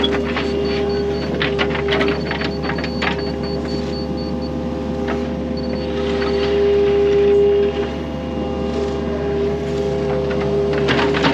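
Mini excavator running steadily, its engine and hydraulics giving a constant hum and whine, louder for about a second past the middle as the arm works under load. Scattered short knocks and scrapes of the steel bucket and hand tools in the dirt.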